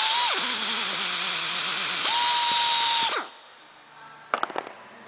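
Pneumatic spin-pull rivet nut tool running while setting a stainless steel rivnut: a loud hiss of air with a motor whine that spins up and drops at the start, then spins again steadily for about a second before cutting off. A few light metallic clicks follow about a second later.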